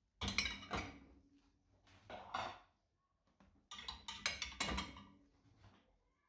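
Knocks and clatters from household objects being handled, in three separate bunches, the last the longest.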